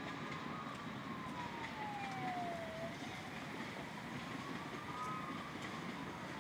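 A siren wailing slowly, its pitch rising, sinking over a couple of seconds, then rising again, over a steady background hiss.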